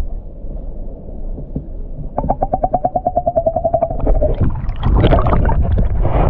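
Water heard through an underwater camera: a muffled low rumble, and about two seconds in a pulsing hum that lasts about two seconds. Then loud splashing and sloshing as the camera breaks through the surface.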